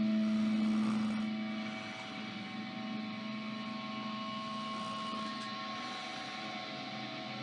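Electric guitar (Killer Guitars KG-PRIME through a Line 6 POD HD500) holding long, smoothly sustained notes. A low note fades out about a second and a half in, and a higher note is held through the middle.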